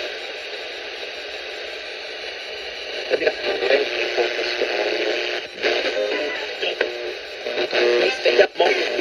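Broadcast radio playing through a small speaker: a steady hiss for the first few seconds, then music from about three seconds in, with two brief dropouts near the end.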